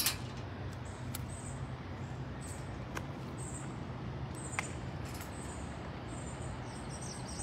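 Outdoor ambience: a steady low hum with faint, short high-pitched chirps coming and going, and a few light clicks, the sharpest at the very start.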